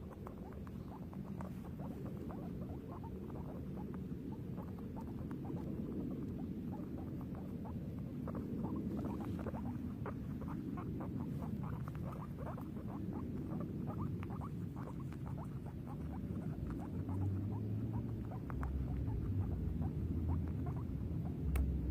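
Guinea pig making a rapid run of short, quick sounds over a continuous low rumble, with a few dull thumps near the end.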